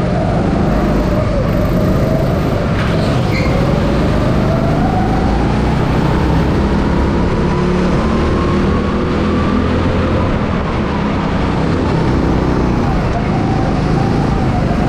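Go-kart engine running under throttle, its pitch climbing slowly over several seconds and then dropping back, over a steady low rumble.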